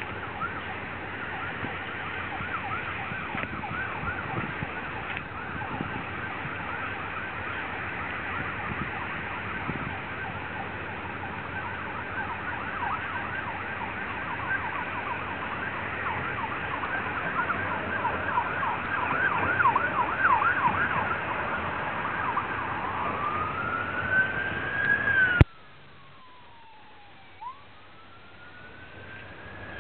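Emergency vehicle siren in yelp mode, sweeping rapidly up and down several times a second, changing near the end to a slow rising and falling wail. The sound drops off abruptly about 25 seconds in, and the wail carries on much fainter.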